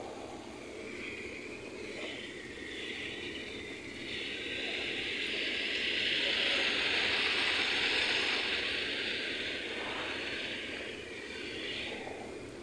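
Rotating lawn sprinklers spraying water, a steady hiss that swells for a few seconds in the middle as the spray sweeps nearer, then eases off, over a low background rumble.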